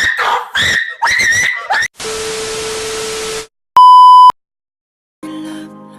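A short, very loud electronic beep at one steady pitch, lasting about half a second, in the manner of a censor bleep. Before it come a few high, wavering voice-like squeals and then about a second and a half of steady hiss with a low hum. Music starts near the end.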